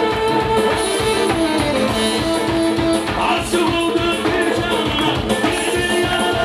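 Amplified live band music: a drum kit keeping a steady beat under electronic keyboards, with a man singing into a microphone.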